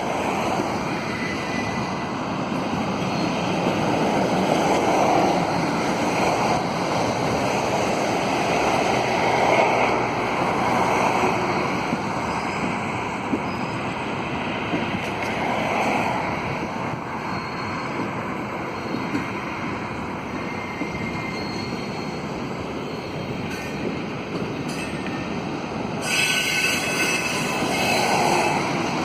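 Double-stack container train cars rolling around a curve, with a steady rumble of steel wheels on rail and high wheel squeals that come and go as the wheel flanges strain against the curved rail.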